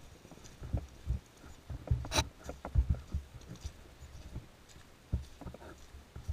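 Footsteps of a player walking on artificial turf, heard as irregular low thumps through a body-mounted camera, with gear jostling. A single sharp crack about two seconds in.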